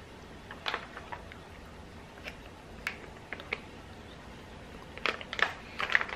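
Vacuum-sealed plastic bags crinkling and rustling as they are picked up and handled, in short scattered crackles, most of them near the end.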